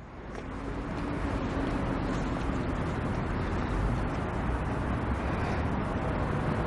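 Steady outdoor background noise, a low rumble with hiss like distant traffic, fading in over the first second.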